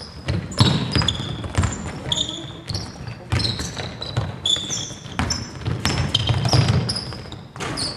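Basketball dribbled repeatedly on a wooden gym floor, its bounces coming at an uneven pace, with short high squeaks from sneakers on the court.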